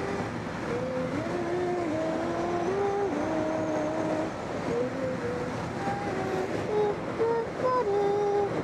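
Steady rush of air around a glider's cockpit in flight. Over it an electronic variometer tone steps up and down in pitch every fraction of a second, following the glider's climb in rising air.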